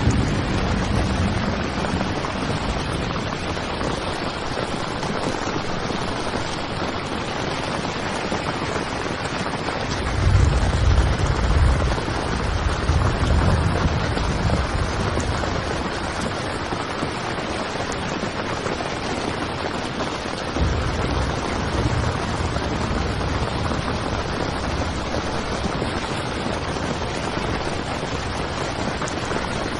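Heavy rain drumming steadily on a tent. Deep low rumbles swell up about ten seconds in and again around twenty seconds.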